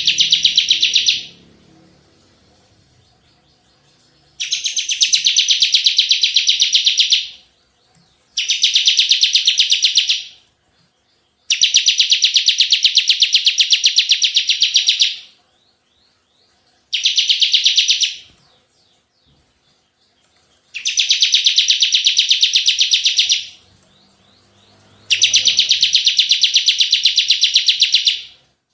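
Bar-winged prinia (ciblek) singing its rapid 'tembakan' song: long trills of fast, evenly repeated high notes in seven bursts of one to four seconds each, with short pauses between them.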